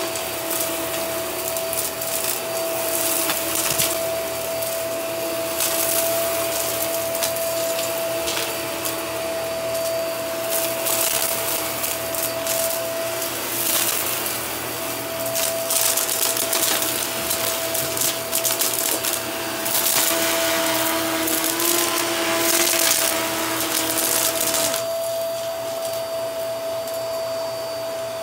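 Upright vacuum cleaner running on carpet with a steady motor whine, sucking up dirt and small debris that crackles and rattles through it in quick irregular clusters; the crackling stops a few seconds before the end while the motor keeps running.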